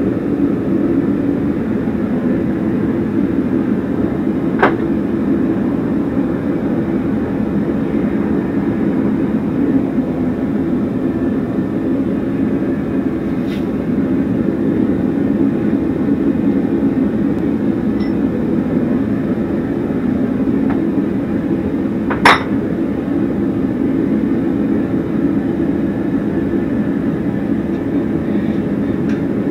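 Forge running with a steady low roar, with two sharp, ringing metallic clinks of steel on the anvil about 18 seconds apart, the second louder.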